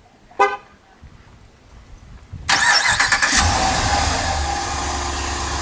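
A short chirp about half a second in. About two and a half seconds in, the Ram 2500's 6.4 HEMI V8 is remote-started: the starter cranks, the engine catches and settles into a steady idle.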